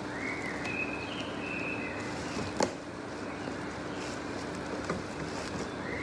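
Plastic wrapping crinkling and rustling as it is worked off a Char-Broil grill's wire cooking grate, with a sharp click about two and a half seconds in and a smaller one near five seconds.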